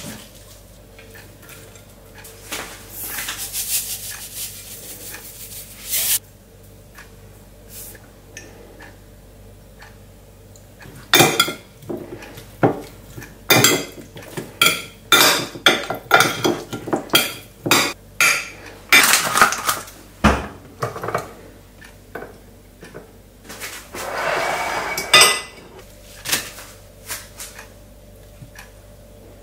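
Kitchen utensils and dishes clinking and clattering as food is prepared: a string of sharp knocks and clinks, busiest in the middle of the stretch, with a few short hissing sounds in between.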